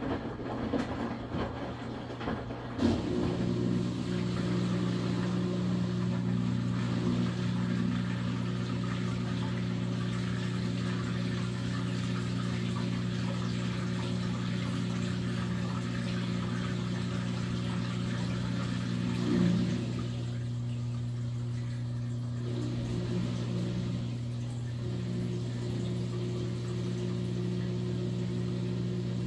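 Maytag washing machine running: a steady hum with a wash of noise above it. There is a clunk about three seconds in, after which the hum grows fuller; past the middle it thins for a few seconds, then returns.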